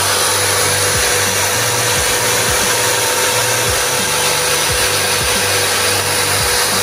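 Electric drill running steadily with a sanding drum in its chuck, sanding a cast resin piece pressed against the spinning drum: a steady motor whine over the hiss of abrasive on resin.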